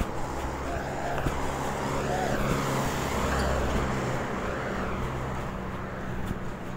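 Steady road traffic noise with a low engine hum, a little louder through the middle.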